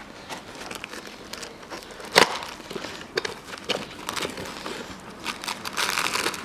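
Crinkling and rustling of the packaging of a set of genuine Toyota piston rings being opened by gloved hands. There is a sharp crackle about two seconds in and a denser patch of crinkling near the end.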